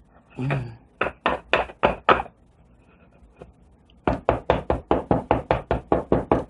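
Inverted bath bomb mold being knocked against a hard surface to free a stuck bath bomb. There is a dull thud, then a run of five sharp knocks, a pause, and a faster run of more than a dozen knocks.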